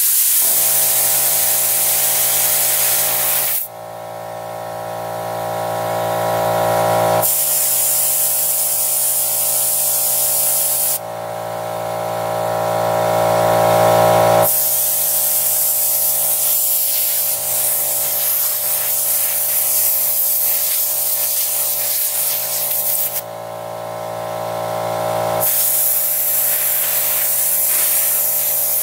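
Compressed air hissing from an air-compressor blow nozzle pushed under a stiff new foam bicycle grip, blowing the grip loose so it can be worked onto the handlebar. Three times the hiss gives way for a few seconds to a muffled humming tone, then comes back.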